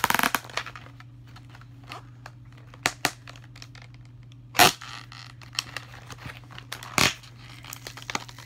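Plastic toy packaging being torn open and crinkled by hand: irregular crackles and a few sharper rips, the loudest about three, four and a half and seven seconds in.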